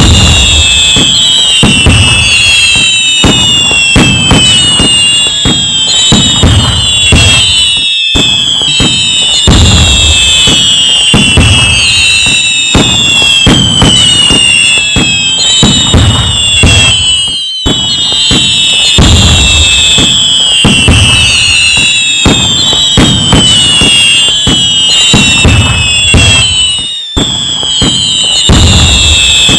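Loud, continuous fireworks: many falling whistles over dense crackling and low booms. It is a short recording looped, with a brief gap about every nine and a half seconds.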